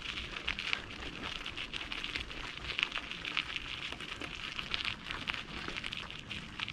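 Bicycle rolling along a campsite driveway: a dense, irregular crackle of small ticks from the tyres on the surface.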